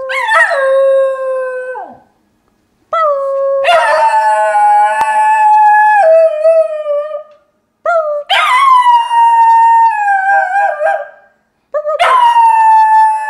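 Dog howling: four long drawn-out howls with short breaks between them. Each starts high, slides down in pitch, then holds steady, and the last runs on past the end.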